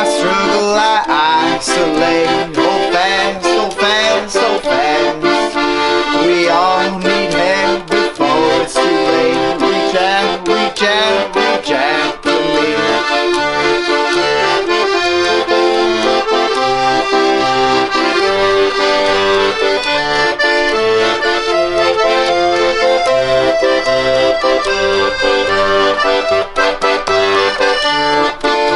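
Instrumental folk-punk music with no singing: sustained chords over a steady pulse of low notes, with occasional sharp strums.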